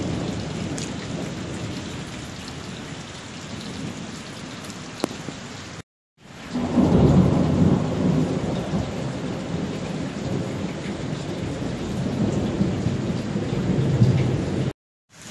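Heavy rain falling on floodwater during a thunderstorm. After a brief cut to silence about six seconds in, a long low roll of thunder rumbles for several seconds. A second brief drop to silence comes near the end.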